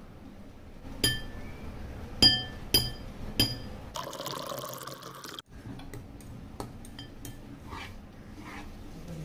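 Small glass bowl clinking with a bright ring four times against a glass mixing bowl as chopped green chili is tipped in. Then water is poured from a glass jug into the bowl for about a second and a half, followed by lighter clicks and brief scrapes.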